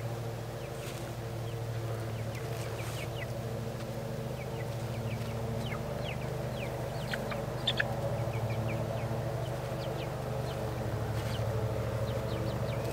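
Young chickens calling with many short, high, falling chirps, over a steady low hum.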